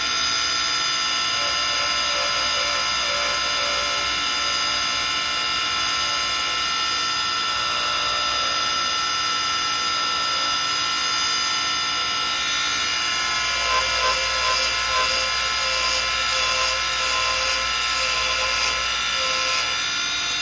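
Wood lathe running with a steady whine of several tones, as a chisel cuts the spinning walnut and green spindle blank, with a few louder scrapes a little over halfway through.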